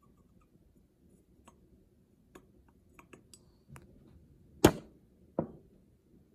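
Light ticks and taps of glassware being handled, then two sharp knocks a little under a second apart, the first the louder.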